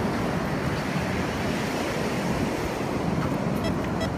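Ocean surf and wind buffeting the microphone. Near the end, a metal detector starts beeping in quick, evenly spaced short tones.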